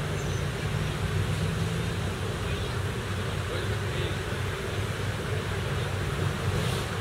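Steady road-traffic din with a low engine hum running under it.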